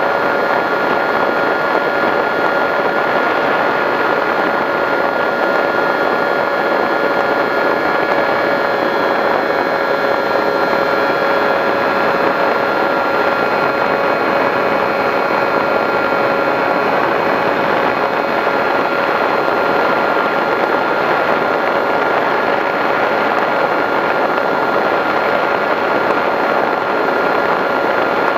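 Skywalker RC plane's 910kv brushless electric motor and propeller in flight, heard through its onboard camera: a steady whine over a rush of wind noise, holding one pitch throughout.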